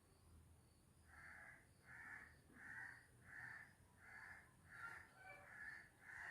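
A bird calling over and over, faint: a run of about eight short, evenly spaced calls starting about a second in.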